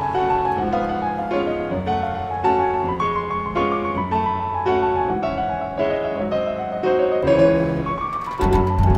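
Background piano music: a melody of separate notes over held chords. A steady percussion beat comes in near the end.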